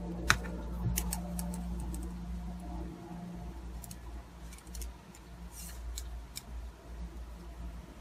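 Metal double-pointed knitting needles clicking against one another while stitches are worked in the round on four needles. The clicks are light and irregular, with a sharper one just after the start, over a steady low hum.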